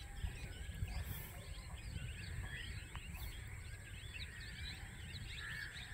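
Faint chorus of many short chirping calls from small animals, over a low steady rumble.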